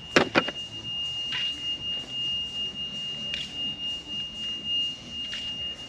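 A steady, high-pitched electronic beep held as one unbroken tone, with two sharp clicks just after it begins.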